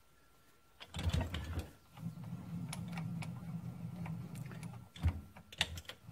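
Small metal lathe mechanism moving: a scrape about a second in, then a steady low, gritty mechanical rumble with scattered sharp clicks.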